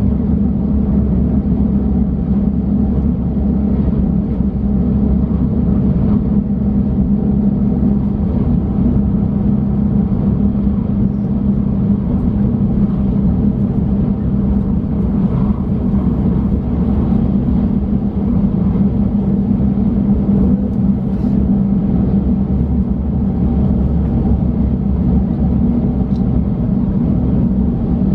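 Steady low rumble and hum inside the cabin of a Shinkansen bullet train running at speed.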